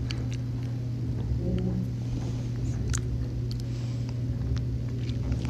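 A steady low hum with rumble under it, and a few faint clicks and taps, the clearest about three seconds in.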